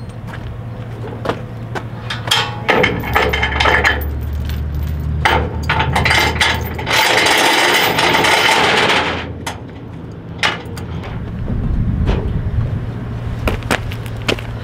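Irregular metal clanks, knocks and scraping from work on a steel equipment trailer carrying a Bobcat 430 mini excavator, over a steady engine hum. A louder scraping rush lasts about two seconds a little past the middle.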